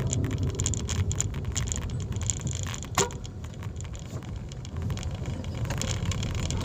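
Vehicle cabin noise while driving: a steady low road rumble with frequent small rattles and clicks, and one sharper click about three seconds in.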